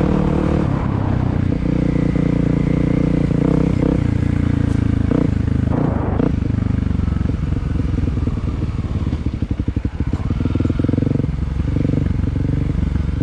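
Dirt bike engine running while riding, its pitch stepping up and down with the throttle. About nine seconds in it drops to slow, low revs with separate firing pulses, then picks up again.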